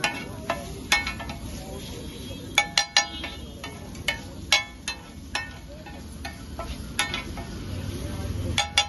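A metal spatula repeatedly striking and scraping a large flat iron griddle (tawa) as food is chopped and pushed around on it. Sharp clinks come at an irregular pace, over a low steady background noise.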